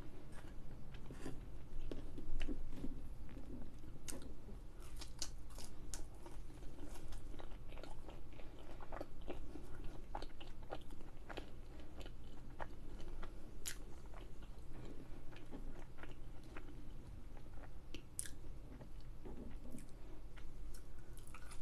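A person chewing and biting fast food close to the microphone, with scattered sharp mouth clicks and soft crunches.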